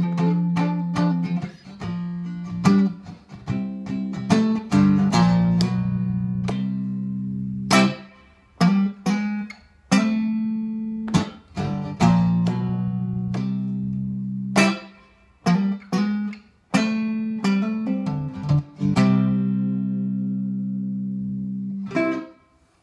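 Cigar box guitar played clean, with no effects, through a custom wooden magnetic pickup: picked notes and strummed chords, several left ringing for a couple of seconds. The last chord is cut off abruptly just before the end.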